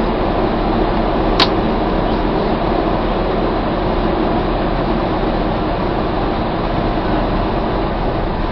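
Steady running noise of a coach bus on the move, heard from inside the cabin while it drives through a road tunnel, with one sharp click about a second and a half in.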